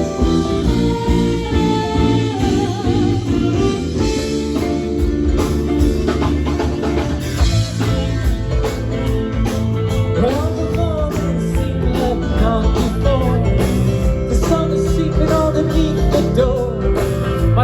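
Live rock band playing a guitar-led song over bass and drums, with a wavering melody line coming in about ten seconds in.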